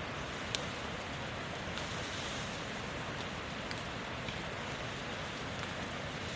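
Steady rushing noise with a few scattered sharp ticks.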